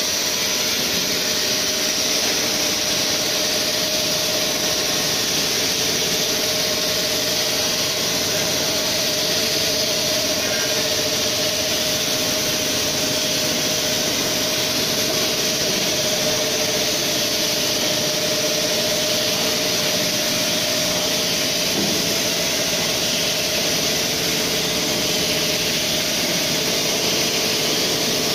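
CNC vertical machining center running as it mills socket pockets into a stainless steel roll: a steady machine whine over a constant hiss, even throughout.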